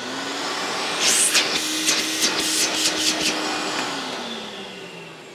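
Airway 88 MKII canister vacuum's motor starting up: it spins up to a steady whine within about a second, runs with irregular sharp hissy crackles for a couple of seconds, then is switched off about four seconds in and winds down, falling in pitch. The motor sounds in good order.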